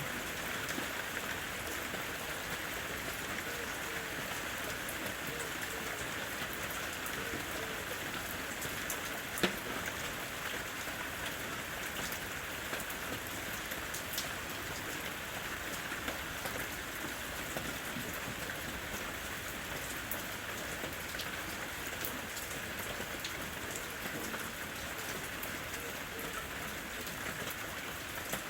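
Steady rain falling in a forest: an even hiss with scattered close drops landing as sharp ticks, one drop louder than the rest about a third of the way in.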